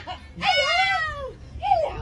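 A golden retriever "talking": one long, wavering howl-like call that dips and rises in pitch, then a second short call near the end.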